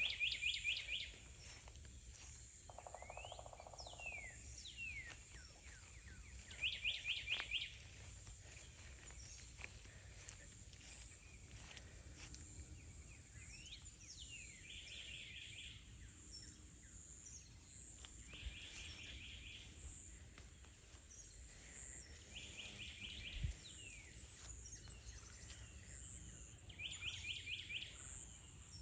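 Birdsong: one bird repeats a short phrase of five or six quick notes six times, with a few sliding calls in between. A thin, steady, high-pitched whine runs underneath and stops suddenly about ten seconds in.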